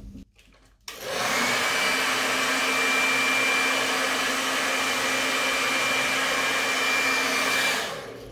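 Hand-held hair dryer blowing hot air onto hair held up at the crown: it comes on about a second in and runs steadily, a rush of air with a thin high whine, then winds down near the end.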